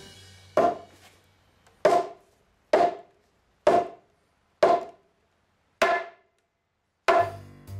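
Six hammer blows on a timber mortise-and-tenon joint, about one a second, each a sharp wooden knock with a short ring.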